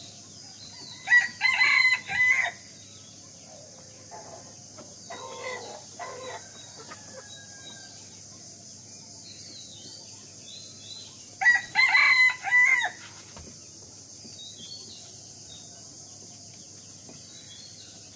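Egyptian Fayoumi roosters crowing: two loud, full crows about ten seconds apart, each in several drawn-out segments. Fainter bird calls come between them.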